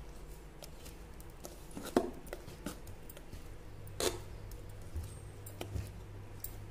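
A steel spoon stirring watered-down idli batter in a metal vessel, with soft scraping and scattered knocks against the pot, two of them louder about two and four seconds in.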